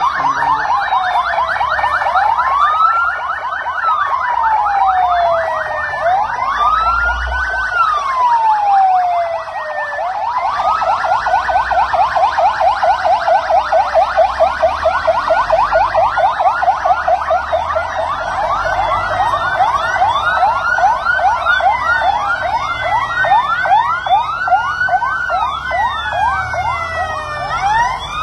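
Several ambulance sirens sounding at once as a convoy passes: slow rising-and-falling wails, each about three to four seconds long, over fast yelps at about five a second. The yelps grow louder from about ten seconds in.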